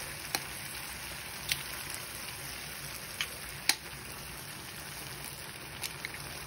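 Ham, tomatoes and eggs frying in oil in a pan, a steady sizzle, with a few sharp clicks as a knife cracks eggshells, the loudest a little past the middle.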